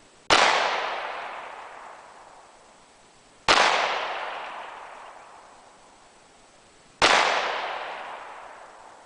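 Three shots from a .38 Special revolver, about three and a half seconds apart, each sharp crack followed by a long echo that dies away over a couple of seconds.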